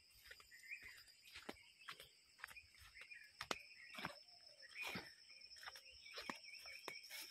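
Faint footsteps on a dirt forest path, an irregular patter of soft knocks. Behind them, birds call now and then over a steady high insect drone.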